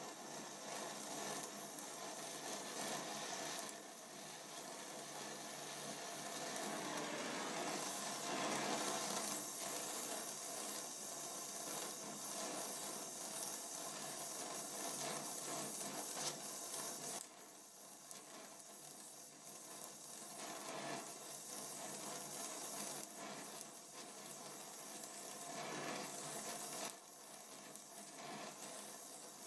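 Hissing flame of a Donmet 132A micro gas welding torch, running steadily while a filler rod is melted into the weld pool. The hiss drops in level twice, briefly.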